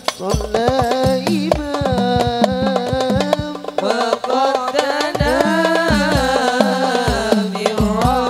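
Hadroh ensemble: a male lead voice sings an ornamented devotional melody, with long bending phrases, over hand-beaten frame drums and a deep drum keeping a steady rhythm.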